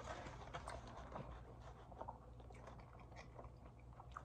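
Faint close-up chewing of a mouthful of chicken gyro, with small irregular wet mouth clicks.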